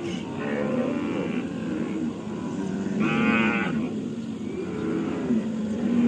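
Several cattle mooing, their low calls overlapping one another, with one louder, higher call about three seconds in.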